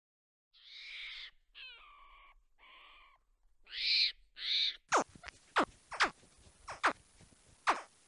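Animal calls: five short calls in a row, then a string of quick whistles, each sweeping steeply down in pitch, about one every half second to second.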